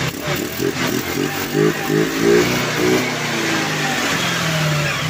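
Rossi Rapid 150 scooter's 150 cc engine, fitted with a new 26 mm Keihin carburetor, running and blipped up and down a few times, then settling back to a steady idle.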